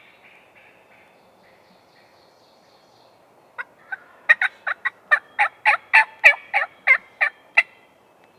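A series of about fifteen turkey yelps, starting about three and a half seconds in at roughly three a second, loudest in the middle of the run and ending abruptly.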